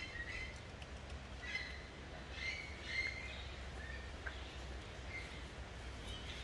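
Birds chirping: about eight short high calls scattered over a few seconds, over a steady low rumble.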